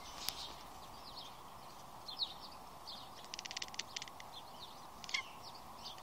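Cat chattering at birds: a rapid run of faint clicks lasting under a second, midway through, the cat's 'machine gun' chatter. Faint, short, high bird chirps come and go around it.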